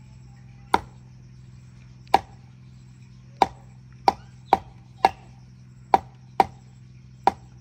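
Trotters (paya) being chopped into pieces: nine sharp chops at uneven spacing, some in quick pairs, over a steady low hum.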